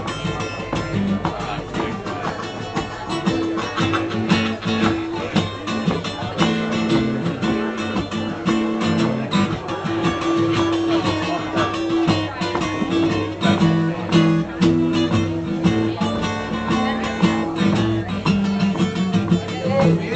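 Acoustic guitar strummed in a blues rhythm while a harmonica plays an instrumental break over it, holding long notes.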